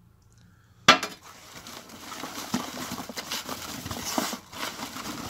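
A hand mixing yellow bream groundbait in a plastic bucket as water is worked into the dry crumb: a sharp knock about a second in, then steady gritty rustling and scraping of the mix against the bucket.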